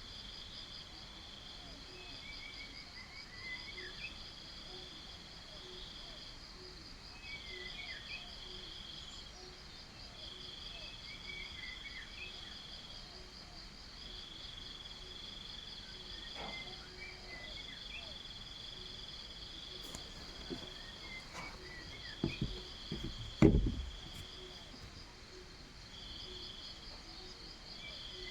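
Crickets and cicadas trilling steadily in two high-pitched bands, the lower one coming in trills about a second long with short gaps between. Short chirping calls come every four seconds or so. A few low thumps fall near the end, the loudest about 23 seconds in.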